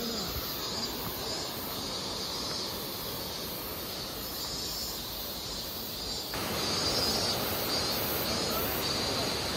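Steady rushing of a mountain river in a forested gorge, with a constant high insect drone over it. The sound gets louder about six seconds in, closer to the vine bridge over the river.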